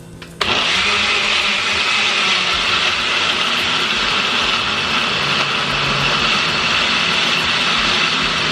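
Blender switched on and running steadily at speed, chopping tomatoes, onions, ginger and dried peppers into a coarse pepper blend. It starts suddenly about half a second in.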